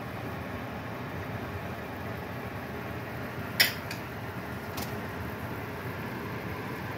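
Steady fan-like background hum, with one sharp click about halfway through and a fainter click about a second later.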